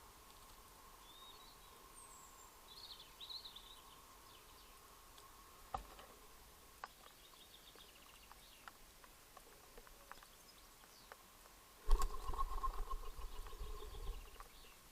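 Birds at a pond: a few faint high calls early on and scattered small clicks, then about twelve seconds in a loud, close burst of rapid beats lasting a couple of seconds. A faint steady tone sits underneath throughout.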